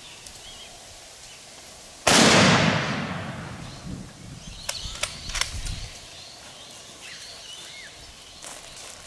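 A single loud gunshot about two seconds in, its echo rolling away over the next few seconds, followed by a few sharp clicks.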